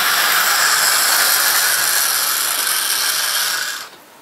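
00 gauge model train running along the track, a steady hiss of wheels and motor that stops abruptly about four seconds in as the train halts.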